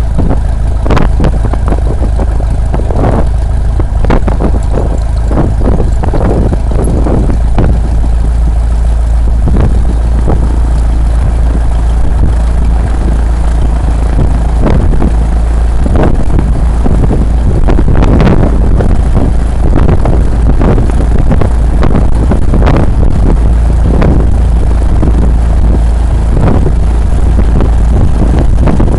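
Single-engine light airplane's piston engine and propeller running steadily at low power, heard from a camera mounted outside on the airframe. A heavy low rumble runs under it, with irregular gusty thumps of propwash and wind buffeting the microphone.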